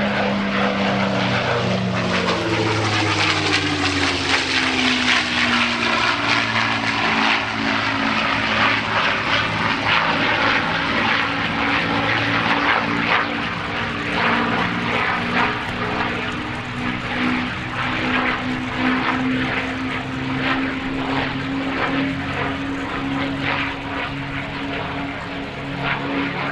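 XP-82 Twin Mustang's two V-12 piston engines driving its propellers in a loud fly-by. The engine pitch drops over the first few seconds as the plane passes, then holds as a steady drone.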